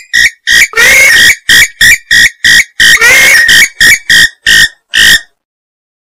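Purple swamphen calling: a quick series of short, loud notes, about three a second, with two longer ones, stopping about five seconds in. This is a lure recording of the kind played to draw swamphens in the breeding season.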